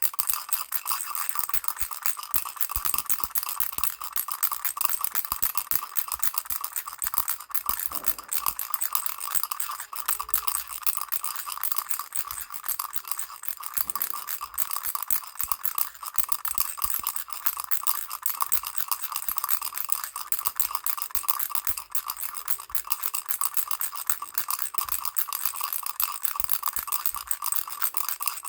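Baby rattle shaken rapidly and without pause: a dense, steady, bright rattle with a faint ringing tone in it.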